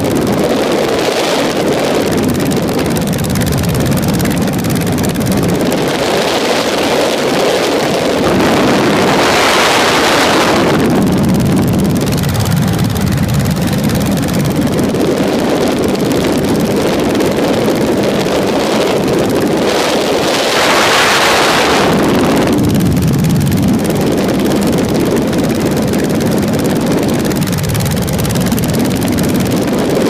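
Ultralight aircraft engine running steadily in flight, with a strong wind rush over the microphone that swells twice: a few seconds in and again about two-thirds of the way through.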